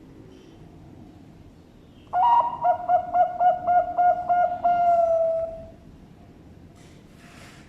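Perkutut bangkok (zebra dove) singing its cooing song, starting about two seconds in: a quick run of about nine rolling coos that ends in one long drawn-out note, falling slightly in pitch.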